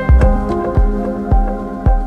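Background music: a steady low beat about twice a second under held, sustained notes.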